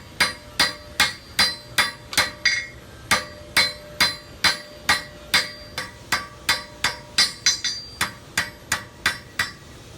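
Blacksmith's hammer striking hot metal on an anvil in a steady rhythm, about three blows a second, each blow with a short metallic ring.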